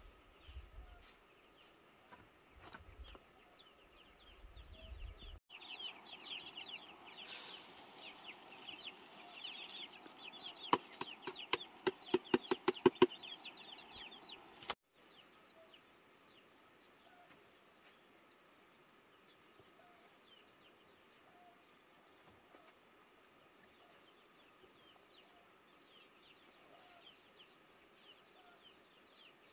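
Chickens clucking among small birds chirping, with a quick run of loud clucks about halfway through. In the last half a high, short chirp repeats about once a second.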